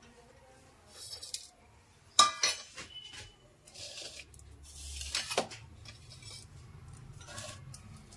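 A steel plate clinks sharply a few times against a ceramic bowl, loudest about two seconds in, and cumin and fennel seeds rustle as they slide off the plate into the bowl.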